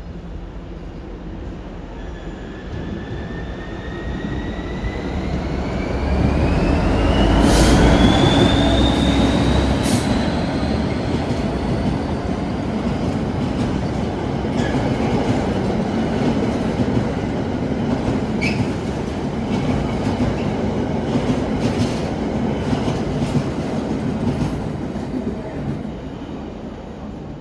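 Train running past close by: a high whine rising steadily in pitch for the first ten seconds or so, over a rumble of wheels on rail that is loudest about eight seconds in. The wheel rumble then goes on steadily with scattered clicks over the rail joints and fades near the end.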